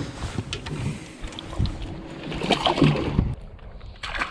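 Wind buffeting the microphone on a small fishing boat, with scattered knocks and handling noises from the deck and a louder stretch of rustling and scuffing a little past the middle.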